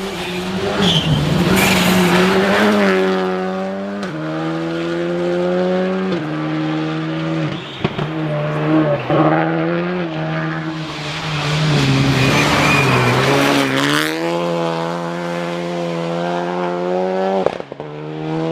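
Rally car engine at full throttle on a closed stage, its pitch stepping with gear changes and sweeping up as it accelerates hard, with tyre noise under it. The sound drops off abruptly about a second before the end.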